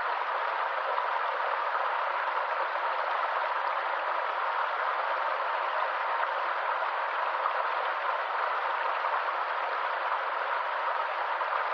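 Stream water running steadily, an even rushing that holds constant throughout.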